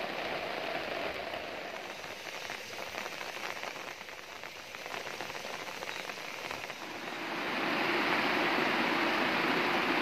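Banana fritters deep-frying in a wok of hot oil: a steady sizzle that gets louder about seven and a half seconds in.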